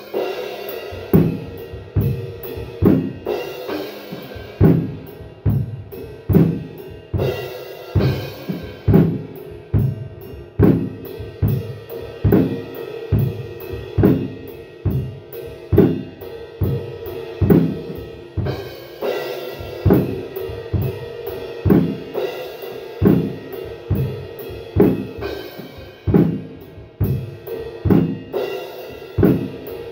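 Yamaha drum kit played in a steady groove: a heavy kick-and-snare hit about once a second, with cymbals and hi-hat between the hits.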